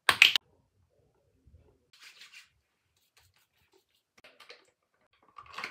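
A short, loud rush of noise at the very start, then soft rubbing and patting as toner is spread with the hands and patted onto the face, a few light pats about four seconds in.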